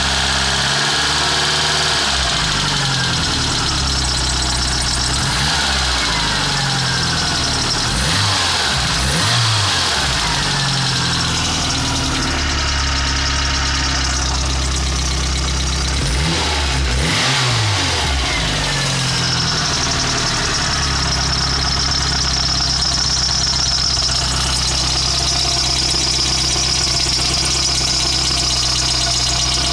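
VW Polo 86C's 45 PS AAU four-cylinder petrol engine running with a heavy rattle. It idles steadily and is revved up and back down twice, about eight and about seventeen seconds in.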